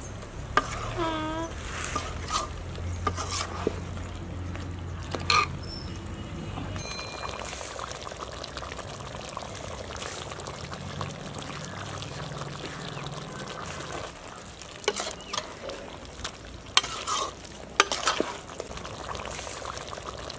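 A spoon stirring and scraping chicken curry in a large aluminium pot, with a few sharp clicks at the start, then the curry simmering steadily in its gravy. A few more clicks and knocks come near the end.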